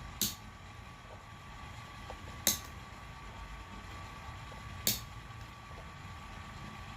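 Vintage Indestro 1/2-inch 12-tooth riveted sheet-metal ratchet being turned slowly by a LEGO M-motor: a sharp click about every two and a half seconds as the pawl snaps over each tooth, with faint ticks between, over a faint steady whine. This is the ratchet's backdrag being measured.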